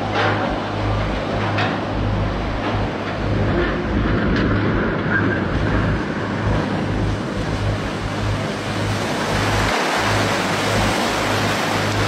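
Rushing water from the wave thrown up by a side-launched ship, surging along a riverbank and washing over it, fuller and louder in the last few seconds.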